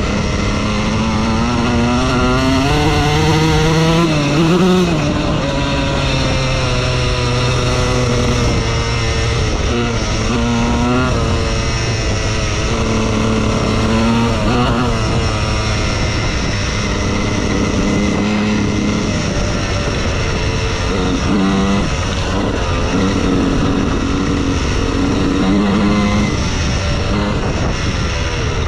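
2003 Honda CR125R's single-cylinder two-stroke engine revving up and falling back repeatedly. The pitch climbs steadily over the first four seconds to a peak, drops off, then rises and falls again and again with shifts in throttle and gear.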